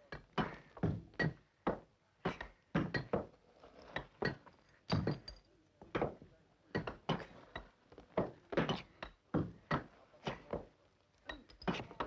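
Repeated irregular knocks and thuds, one or two a second, some overlapping as if from more than one striker.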